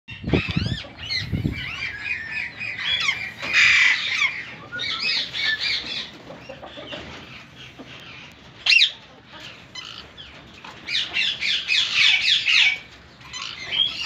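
Plum-headed parakeets calling: quick runs of short, high, curving chirps and squawks in bursts, with one loud sharp call about nine seconds in. The calls come from rival males squabbling on the aviary floor.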